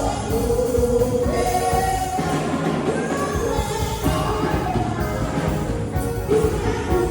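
Church choir and congregation singing a gospel song over live band backing with a drum kit.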